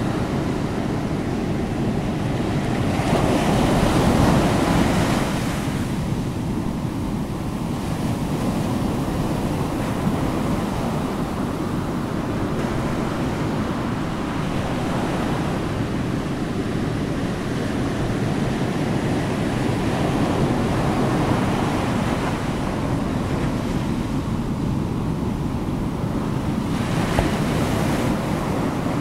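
Steady rushing noise like surf washing in, swelling loudest about four seconds in and again near the end.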